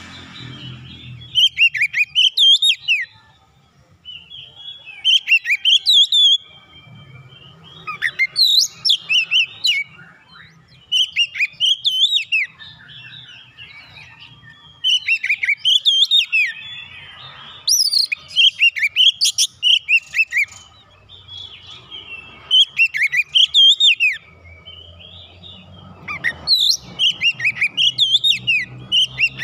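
Oriental magpie-robin (kacer) singing: about ten loud phrases of quick, varied whistles and rising and falling notes, each a second or two long, with short pauses between them.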